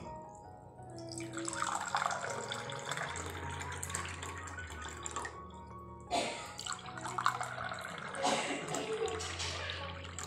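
Water poured into glass tumblers, two pours of about four seconds each with a short break between, over soft background music.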